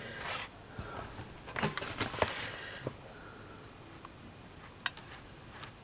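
Light handling noises of small craft tools on a work table: a few short scuffs and rustles in the first half, then two brief sharp clicks near the end.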